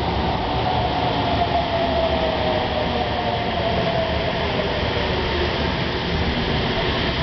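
Sendai City Subway Namboku Line train running in along the platform and slowing to a stop, with steady wheel and rail noise and a whine that falls in pitch as it decelerates.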